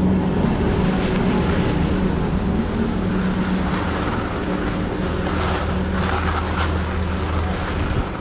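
Steady low mechanical hum from the Leitner detachable quad chairlift's terminal machinery. Over it, skis slide and scrape on groomed snow as the skier glides off the unload ramp, with wind on the microphone.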